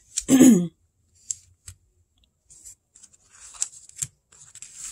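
Paper rustling and crinkling as the white paper edge of a small diamond-painting canvas is folded and pressed by hand, with a few light clicks. A short voiced hum near the start is the loudest sound.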